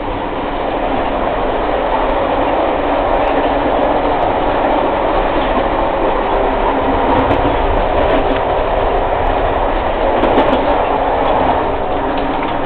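Amtrak passenger train running at speed, heard from the vestibule between cars: a loud, steady rumble of the wheels on the track.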